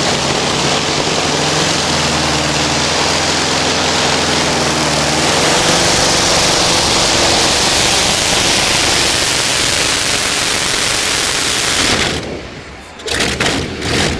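A pulling tractor's Pratt & Whitney R-4360 28-cylinder radial aircraft engine running loud and flat out under load during a pull, which the commentators take for a slipping clutch. It drops away suddenly about twelve seconds in.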